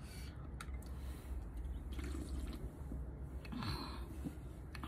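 Drinking from a can: gulps and swallowing, with small wet mouth sounds, over a low steady hum.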